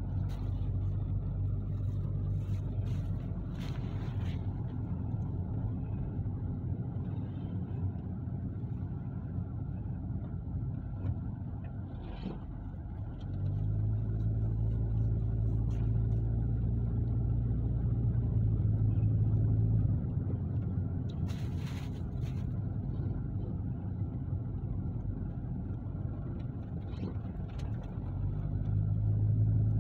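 Car engine and road noise heard from inside the cabin while driving: a steady low hum that grows louder for several seconds about midway and again near the end, with a few faint clicks.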